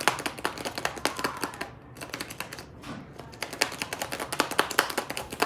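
A small plastic George Pig toy figure rattling inside a plastic Easter egg as the egg is shaken: a fast, uneven run of clicks, with a short lull about two seconds in.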